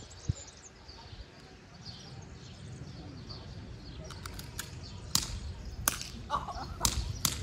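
Airsoft guns firing: a string of sharp, irregularly spaced cracks starting about four seconds in and getting louder, with birds chirping faintly before them and a low wind rumble on the microphone.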